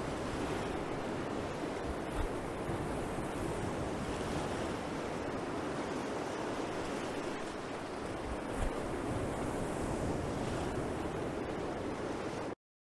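Ocean surf: small waves breaking and washing onto a beach in a steady, even rush, cutting off abruptly near the end.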